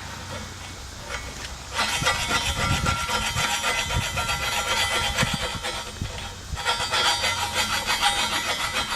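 Hand file rasping on a stainless steel gear in quick back-and-forth strokes. Two spells of filing, starting about two seconds in, with a brief pause a little past six seconds.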